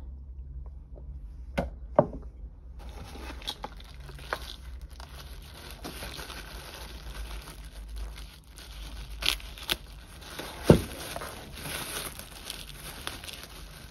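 Crinkling, rustling handling noise, with a few sharp knocks: two about two seconds in, and a cluster between nine and eleven seconds in, the loudest near eleven seconds.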